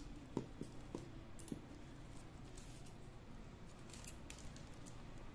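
Flat plastic craft wire being pulled through and knotted by hand: faint plastic clicks and rubbing as the strands slide against each other, several clicks in the first second and a half and a couple more later.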